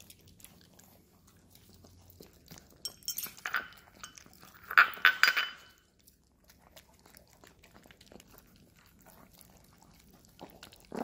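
A Chihuahua and a husky eating soft, rehydrated chicken-and-vegetable dog food from a glass bowl: wet chewing and licking, with bunches of clinks against the glass about three and five seconds in.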